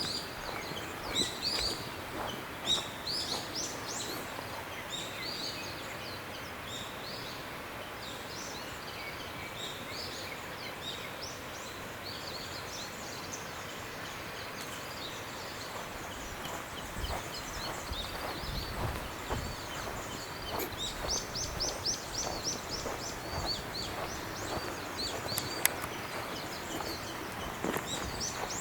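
Several wild birds chirping and singing over a steady outdoor hiss, with a quick run of rapidly repeated chirps about two-thirds of the way through.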